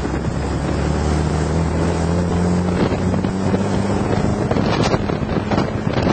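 Wind buffeting the microphone over a vehicle engine running, its low hum rising slightly in pitch and fading out after about four seconds.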